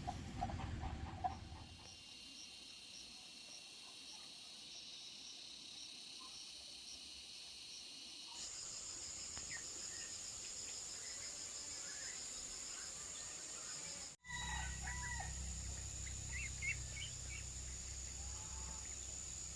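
Rural outdoor ambience: a steady high insect drone that shifts higher about eight seconds in, with a rooster crowing and small birds chirping in the second half.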